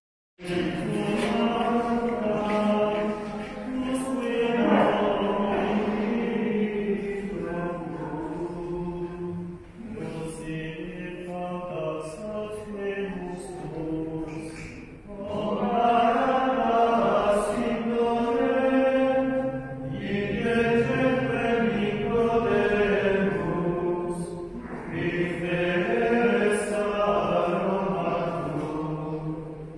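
Choir of Franciscan friars singing a slow liturgical chant in long phrases, with short breaks between them.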